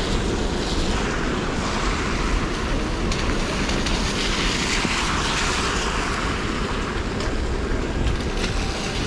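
Car tyres hissing through water on a rain-wet street as traffic passes, one swelling louder about halfway through, with wind rumbling on the microphone.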